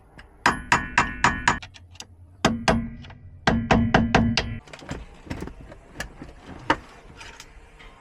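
Hammer striking a metal punch to turn out the ignition's shear-off bolt: three runs of quick, ringing metal blows in the first half, then lighter taps and clicks.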